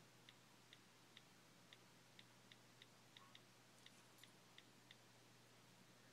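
Faint, irregularly spaced ticks of an iPhone 4S's on-screen keyboard clicks, about two to three a second, as an Apple ID and password are typed in; they stop near the end.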